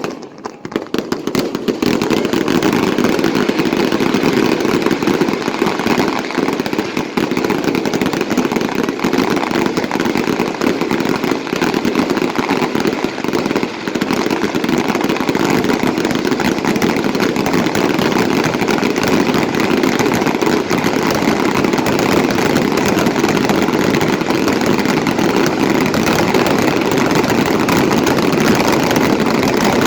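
Fireworks crackling continuously: a dense, rapid run of small pops that starts about a second in and keeps up at a steady level.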